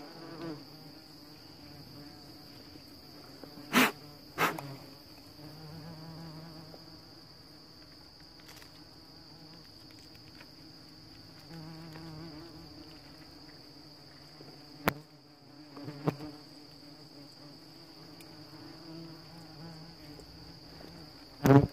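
Ong chân vàng hornets buzzing in low, wavering drones around an opened comb, over a steady high insect drone. A few sharp clicks come from handling the comb and shears, two about four seconds in, two in the middle, and the loudest near the end.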